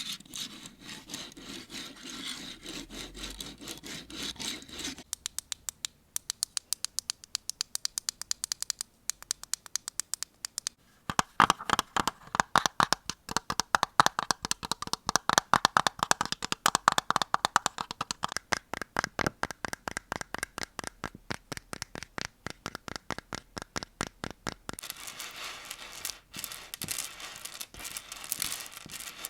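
Close-miked ASMR trigger sounds: scratching for the first few seconds, then a long run of quick, even tapping that grows louder near the middle, then scratching again near the end.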